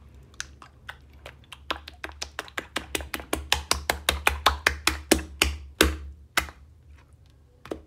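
Wet slaps of a flat hand patting a silicone phone case smothered in ketchup on a tiled floor. The pats speed up and grow louder to about five a second, then slow and stop, with one last pat near the end.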